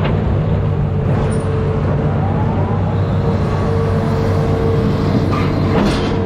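Amphibious excavator's diesel engine running steadily, with a steady higher-pitched tone over the engine drone and a couple of sharp knocks near the end.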